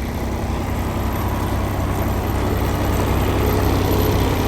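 Semi truck's diesel engine idling steadily, a constant low hum.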